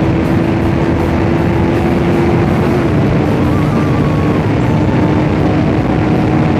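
KTM RC 390's single-cylinder engine running hard at high revs while the bike holds about 150 km/h, under heavy wind rush on the helmet microphone.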